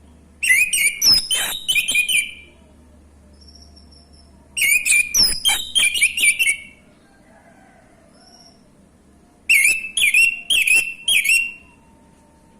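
Male orange-headed thrush singing: three loud phrases of quick, sharp whistled notes, each about two seconds long, with pauses between them.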